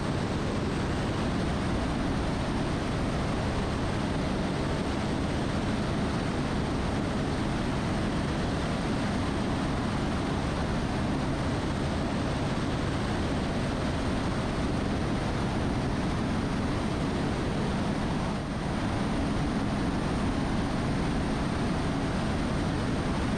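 Airbus AS350 B3e Esquilo helicopter, with its single Arriel 2D turboshaft, running steadily: a constant rotor and engine noise with a thin high whine held over it.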